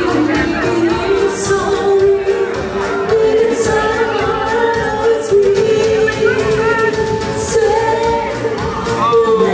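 Live band music: two women singing together into microphones over a keyboard accompaniment with a steady beat.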